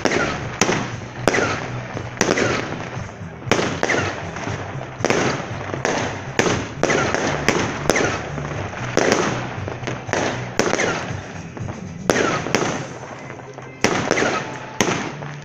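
A fireworks battery firing a rapid series of shots, about one to two a second. Each shot is a sharp bang followed by a short fading tail.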